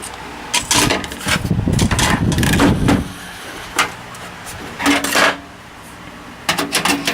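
Clicks and knocks of a desktop PC's parts being handled, with a low rumble lasting about a second and a half near the start.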